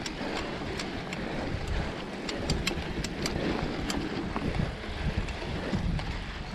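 Mountain bike tyres rolling through loose, deep sand, with wind on the microphone and many scattered sharp clicks and rattles.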